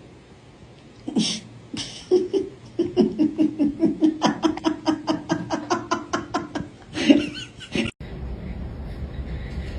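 A person laughing in a long run of rhythmic ha-ha pulses, about four a second, at a steady pitch.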